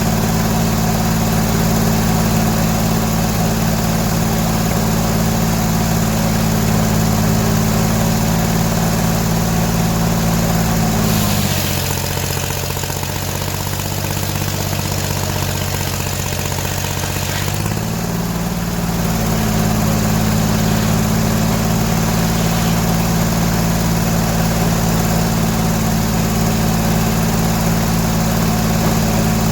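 Gas engine driving a 48-inch inserted-tooth circular sawmill blade runs steadily. About eleven seconds in its pitch drops as the blade cuts into the log, with a hissing cutting sound for about six seconds, then the engine picks back up to speed.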